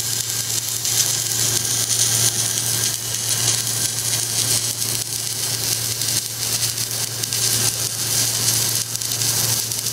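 Submerged arc welder running a bead under granular flux at about 400 amps and 30 volts: a steady hiss over a constant low hum.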